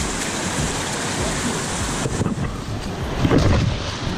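Shallow river rapids rushing around a wading angler's legs, a steady loud hiss of moving water, a little louder about three seconds in.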